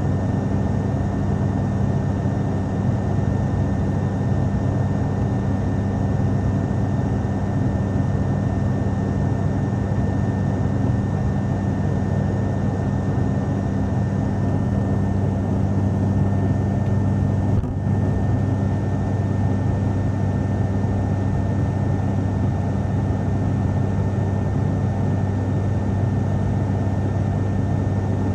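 Steady cabin drone of an ATR twin-turboprop airliner in cruise: a constant low propeller and engine hum with a strong low tone and another an octave above, over an even rush of air and a faint high whine.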